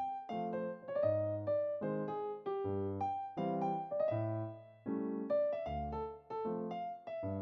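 Background music on an electric piano: a bright melody over chords, with a low bass note about once a second.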